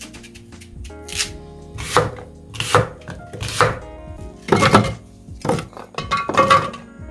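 Chef's knife cutting a green apple into wedges on a cutting board: a sharp knock of the blade through the fruit onto the board about once a second, some seven strokes. Quiet background music runs underneath.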